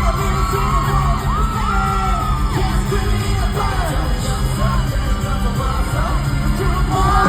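Live rock band playing a song: drums, a steady bass line and a sung melody, with some shouts.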